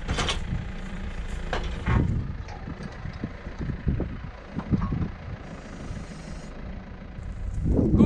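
Case IH tractor's diesel engine running steadily as it drives across the meadow, with occasional clanks and rattles from the lifted chain harrow.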